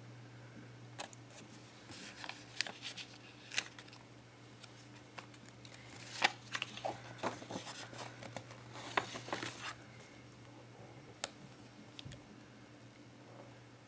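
Hands handling paper washi-tape strips on a paper planner page: soft rustles and crinkles as the strips are peeled and pressed down, with scattered light taps and clicks coming and going. A faint steady low hum runs underneath.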